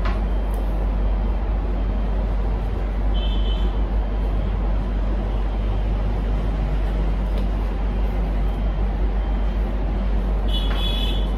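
Steady low rumbling background noise, with two brief high chirps about three seconds in and near the end.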